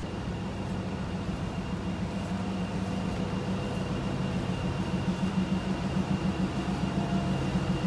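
Air-duct cleaning machine running steadily: a low drone with a thin, steady high whine above it.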